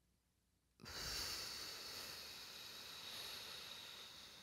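A woman's long, breathy exhale, starting suddenly about a second in and fading out slowly over about four seconds.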